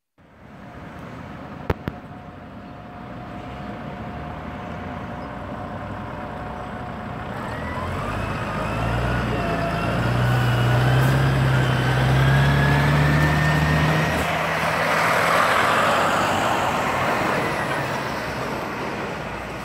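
MAN NM 223 F city midibus with a Castrosua CS40 body passing close by. Its diesel engine hum builds and peaks about halfway through, with a thin whine rising in pitch over it. A heavy tanker lorry follows with a surge of engine and tyre noise, then the traffic fades.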